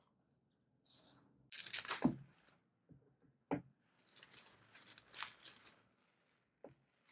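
Plastic bubble wrap and packing filler rustling and crinkling in bouts as items are unwrapped by hand, with a couple of short, light knocks.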